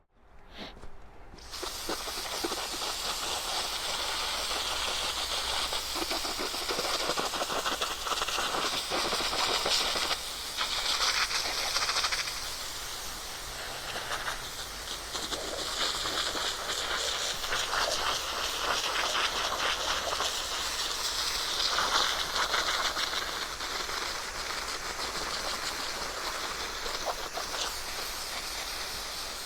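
Garden hose spraying water onto the freshly sawn face of a red oak log, a steady hiss that swells and eases as the spray moves over the wood.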